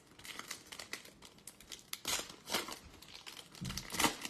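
Silver foil wrapper of a Topps Chrome trading-card pack crinkling and tearing as it is ripped open by hand, in a run of short crackly bursts.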